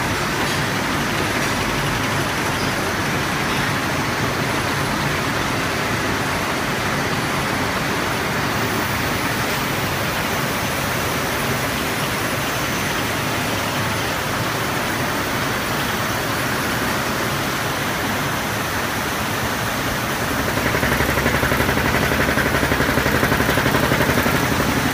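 Double-head paper rope machine running, a steady mechanical din that swells louder for a few seconds near the end.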